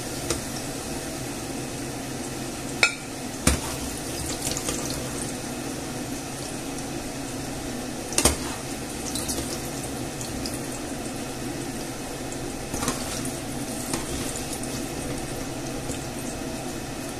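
Hot olive oil sizzling steadily in a frying pan of fried potato cubes. A few sharp clicks come from the slotted spoon knocking against the pan as the potatoes are scooped out.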